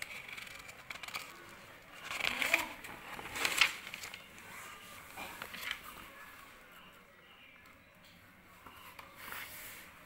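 Sheets of paper and a book being handled close to the microphone, rustling and crinkling in uneven bursts. The loudest rustles come a couple of seconds in, with another near the end.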